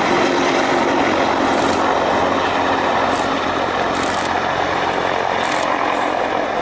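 Mi-26 heavy-lift helicopter's turboshaft engines and rotor running steadily.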